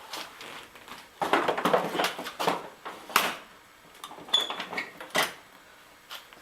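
Hands fitting the back piece of a foam handlebar pad: rustling and scraping, with a few sharp clicks and knocks and a brief high squeak about four seconds in.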